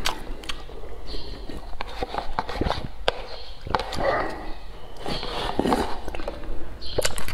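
Slurping and chewing rice noodles eaten straight from a paper cup held to the mouth, with chopsticks clicking against the cup.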